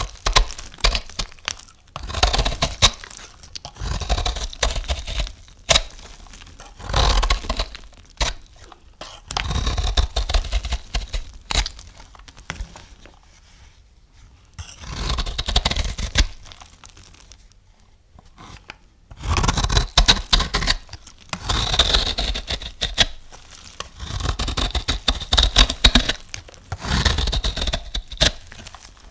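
A knife cutting through soap in repeated strokes of crisp scraping and crackling, each stroke a second or two long with short pauses between.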